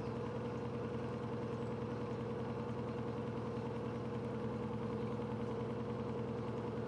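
Electrolux LED14 washing machine on its spin cycle, drum and motor spinning at a constant speed with a steady hum.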